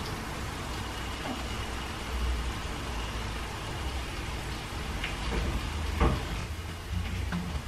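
Light taps and clicks of a spoon and pastry being handled on a kitchen worktop while filling is spooned onto puff pastry squares, the sharpest knock about six seconds in, over a steady low hum and hiss.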